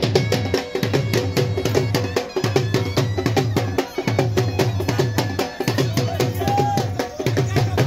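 Drum music with a fast, steady beat: rapid sharp strokes over a deep pulse that repeats in short groups, with crowd voices underneath.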